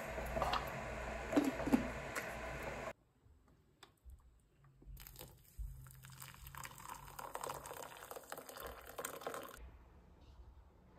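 A teaspoon clinking a few times against a glass instant-coffee jar and mug, then, from about five seconds in, hot water pouring from an electric kettle into a mug of instant coffee, a steady splashing that cuts off sharply near the end.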